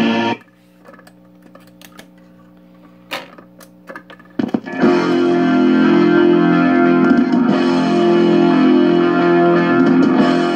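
Vintage Zenith tube record changer cycling on its reject control. The playing record cuts off, then the changer mechanism clicks and clunks for about four seconds over a steady low hum from the player. Then the next 45 rpm record starts playing distorted electric-guitar music through the player's own speaker.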